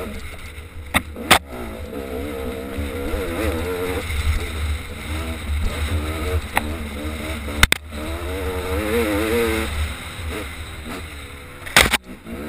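Off-road vehicle engine running on a rocky trail, its pitch rising and falling as the throttle is worked, over a steady low rumble. Several sharp knocks come through, two about a second in, one midway and one near the end.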